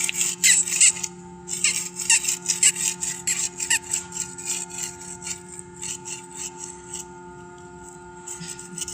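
Quick scratching or rubbing strokes, several a second, thinning out about halfway through and picking up again near the end, over a steady electrical hum.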